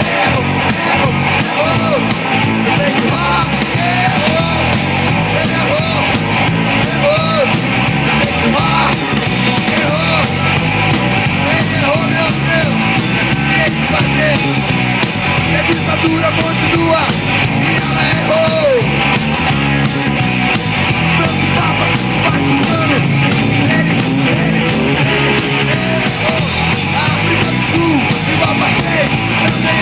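Live rock band playing an instrumental passage at full volume: drums and cymbals under electric guitar, with notes that bend up and down in pitch.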